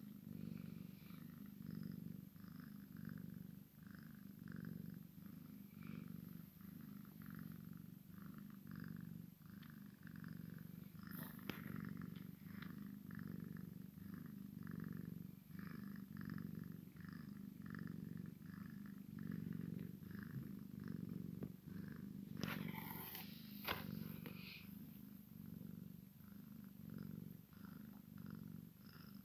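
Cat purring steadily, a low continuous rumble that pulses with each breath, from a Sphynx mother cat and her tabby kitten lying together. A short rustle of movement comes about three quarters of the way through.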